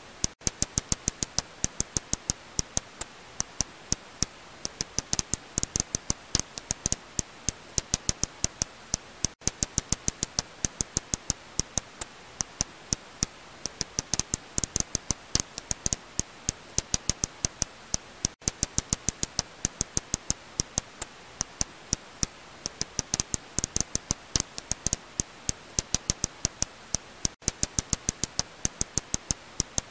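Serotine bat echolocation calls made audible, heard as a rapid, irregular train of sharp clicks, with a short gap about every nine seconds.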